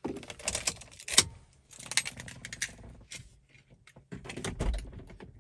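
A bunch of car keys jangling and clicking, with a sharp click about a second in, as the key is handled in the ignition and the car is switched off. A low thump near the end.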